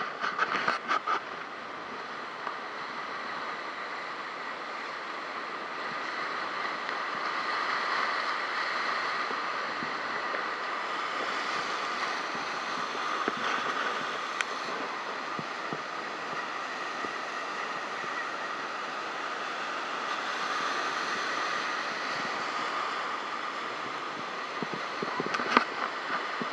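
Ocean surf breaking and washing over a rocky lava shoreline, a steady rushing that swells a little and eases, with wind on the microphone. A few sharp clicks come in the first second and again near the end.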